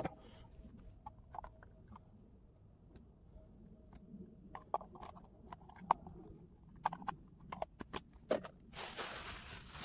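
Scattered sharp clicks and knocks of small objects being handled. A steady hiss starts near the end.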